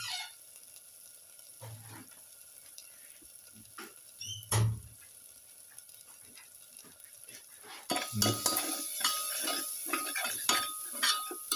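Spiced onion-tomato masala sizzling quietly in a metal pan, with two dull knocks in the first five seconds. From about eight seconds in, a perforated metal spoon stirs it, scraping and clinking against the pan over a louder sizzle.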